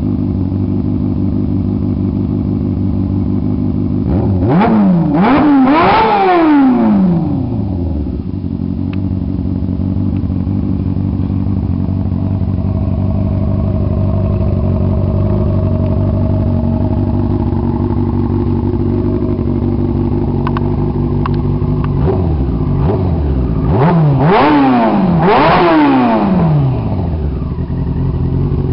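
2001 Yamaha R6's inline-four engine breathing through an HR1 Riot slip-on exhaust, idling steadily. It is revved in a cluster of quick blips about four seconds in and again at about twenty-two seconds, dropping back to idle each time.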